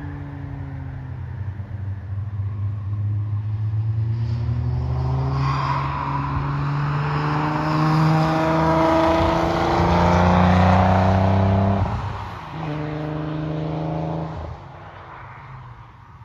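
Nissan 300ZX Twin Turbo's twin-turbo V6 accelerating hard past on track, its note climbing in pitch and loudness as the car passes closest about halfway through. The engine note drops sharply about twelve seconds in and falls away again a couple of seconds later as the car moves off.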